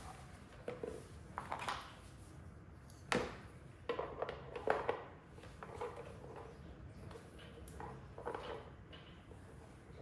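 Hard plastic hose-reel parts being handled and fitted together: scattered knocks and clicks of plastic on plastic, the sharpest about three seconds in and near five seconds.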